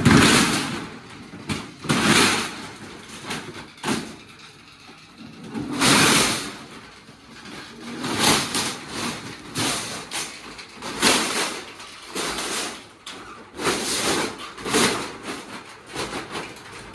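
Steel roller shutter curtain being raised up its guides toward the barrel, the metal slats rattling in repeated surges about every one to two seconds.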